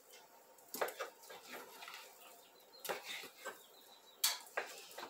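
Kitchen knife cutting raw beef into pieces on a wooden cutting board for grinding: a few sharp knocks of the blade on the board, the loudest about four seconds in, between softer sounds of the meat being handled.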